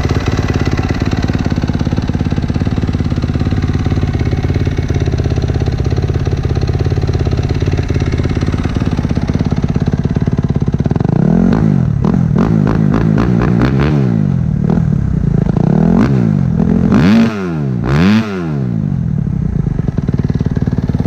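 2018 Kawasaki KX250F's single-cylinder four-stroke engine through a full Yoshimura exhaust, idling steadily, then blipped with a run of quick throttle revs from about halfway. The two highest revs come near the end before it drops back to idle.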